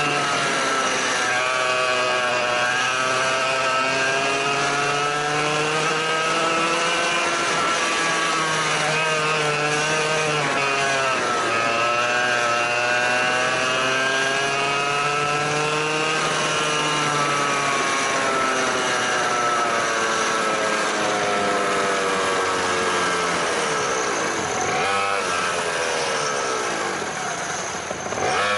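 Go-kart engine heard from on board, its pitch climbing along the straights and falling away as it slows for corners, with its deepest drop about 25 seconds in before it picks up again.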